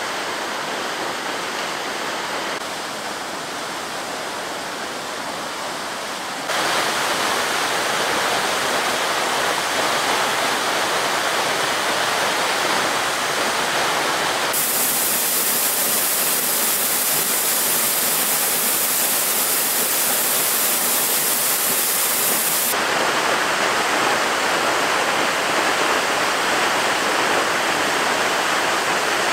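Steady rush of falling water from a waterfall. It jumps louder about a quarter of the way in and turns sharper and hissier for a stretch in the middle, changing abruptly several times as between separate shots.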